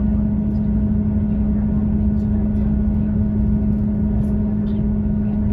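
Class 158 diesel multiple unit heard from inside the passenger saloon. The underfloor diesel engine and running gear make a steady drone, with a low rumble and a strong, even hum throughout.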